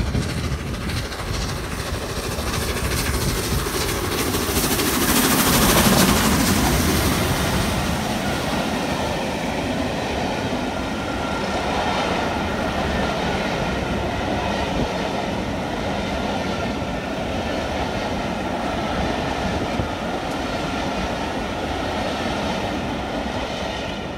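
LNER Peppercorn A1 Pacific steam locomotive 60163 Tornado passing with a train. It is loudest about five seconds in as the engine goes by, followed by the steady rolling clatter of a long rake of coaches' wheels on the rails.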